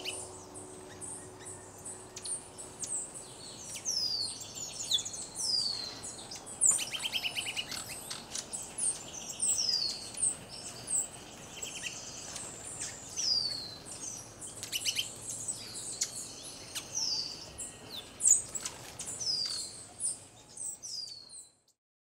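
Birds singing in a dense chorus of many short, high whistles, most of them falling in pitch, with some quick trills among them. A low held music chord fades out in the first few seconds, and the birdsong cuts off suddenly just before the end.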